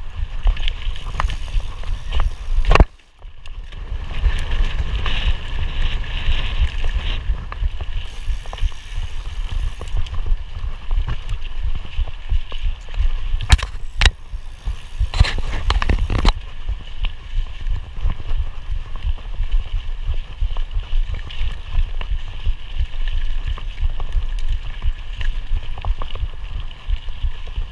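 Mountain bike riding over dirt singletrack: a steady rumble of tyres and wind on the microphone, with the bike rattling and knocking over bumps. There is a hard knock about three seconds in, and another run of knocks a little past the middle.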